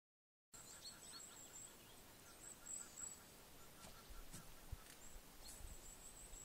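Near silence: quiet outdoor lake ambience with a faint high-pitched chirping and ticking in the first few seconds and a few soft clicks later on.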